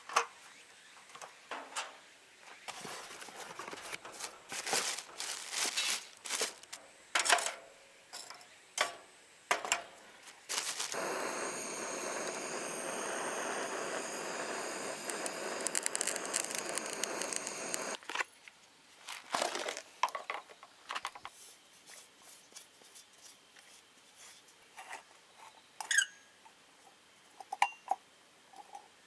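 Clicks, knocks and light clatter of camping gear being handled and set up. For about seven seconds in the middle, a gas torch hisses steadily into lump charcoal in a grill to light it, then more clicks and knocks of small metal parts follow.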